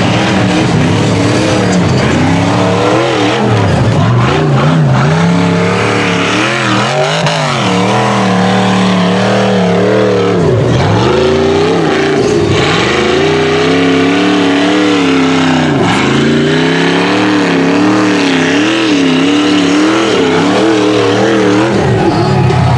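Rock bouncer buggy's engine revving hard on a steep dirt hill climb, its pitch surging up and down every second or two, and dropping away sharply a few times, as the throttle is worked and the paddle tires dig in. A hiss of flung dirt runs under the engine.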